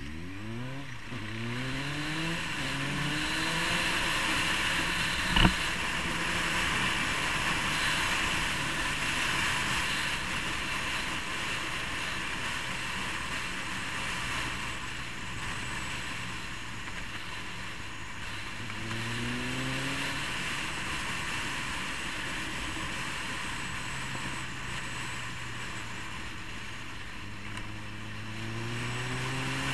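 Motorcycle engine accelerating through the gears, its pitch climbing and dropping back with each shift at the start and again about two-thirds of the way through. Steady wind rush on the microphone runs under it. A single sharp knock comes about five seconds in.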